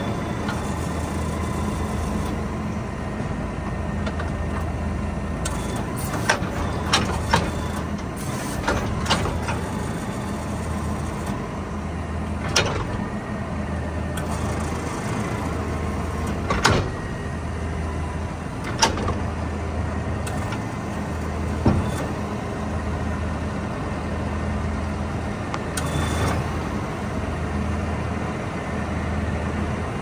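Tractor engine running steadily under load, its low drone swelling and fading about every second and a half, with scattered sharp knocks and clicks over it.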